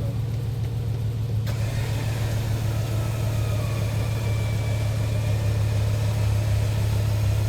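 A vehicle engine idling with a steady low drone that grows slightly louder. About one and a half seconds in, a steady hiss joins it.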